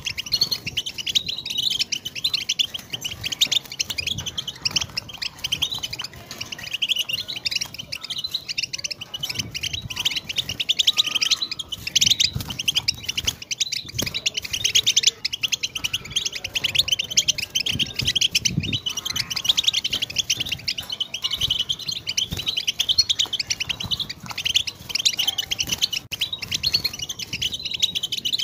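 European goldfinch singing: a long, fast, unbroken run of high twittering and trilled notes with only brief pauses.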